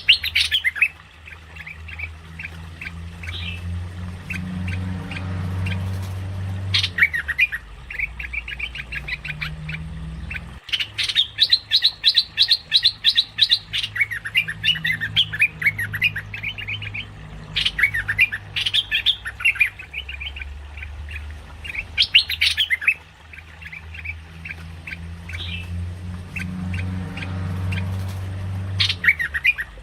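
Merbah lekir, a bulbul, calling in the fast chattering run used as a bird-trapping lure call. Bursts of rapid notes repeat every few seconds, with sharp louder calls near the start and about two-thirds through, over a steady low hum.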